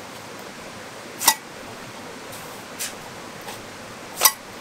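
Two sharp clinks of a mason's steel trowel about three seconds apart, with fainter ticks between, as mortar is worked into a gap in a masonry wall.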